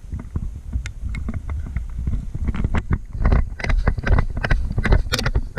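Low rumble of wind and handling noise on a body-worn microphone, with a run of irregular knocks and clatters that grows louder and busier about halfway in.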